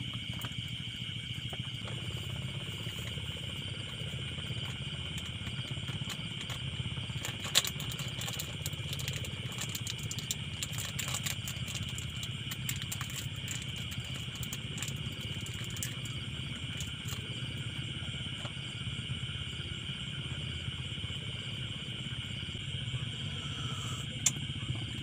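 Steady chorus of night insects over a low, even hum, with a run of light clicks and clatter from small items being handled about a third of the way in; the sharpest click comes near the start of that run.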